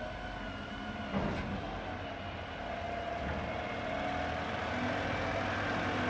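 Diesel engine of a Mack front-loader garbage truck with a McNeilus body, running as the truck pulls up close and growing gradually louder, with a brief clank about a second in.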